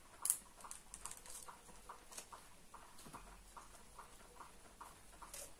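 Hands handling a hardback book and its wrapping: scattered small clicks and rustles, the sharpest about a third of a second in. A faint regular ticking, about two to three a second, runs underneath.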